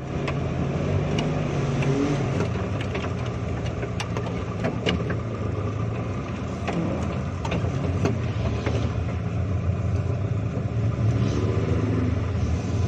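Suzuki Jimny's engine running under load on an off-road track, the revs climbing at the start and again near the end, with scattered sharp knocks and rattles throughout.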